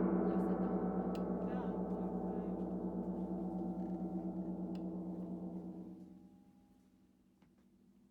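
Gong (dora) ringing out after a strike: a cluster of steady tones with a slow pulsing shimmer, dying away to near silence about six seconds in.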